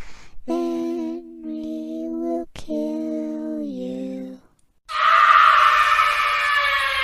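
Eerie background music: a slow, wordless singing voice holding long notes, lullaby-like. About four and a half seconds in it stops, and a sudden loud, hissing sound effect starts and then slowly fades.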